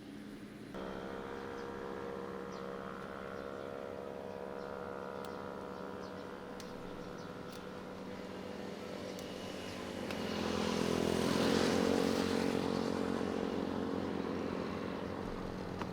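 A small engine running steadily at one pitch, growing louder and rougher for a few seconds about ten seconds in.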